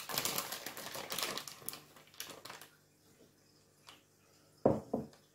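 Rustling and quick light clicks from handling a packet of corn flour and scooping it with a spoon, then a pause and two short knocks near the end.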